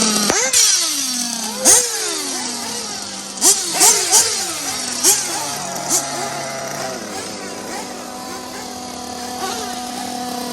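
Electric RC buggies racing, their motors whining up sharply in pitch and falling away again over and over as they accelerate and brake, with a few sharp knocks in the middle.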